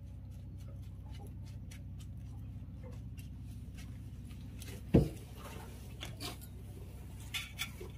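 A lemongrass stalk stirring chopped chilli and shallot sambal on a banana leaf in a steel plate, with faint ticks and scrapes. About five seconds in there is one sharp knock as the stalk is set down on the plate. A steady low hum runs underneath throughout.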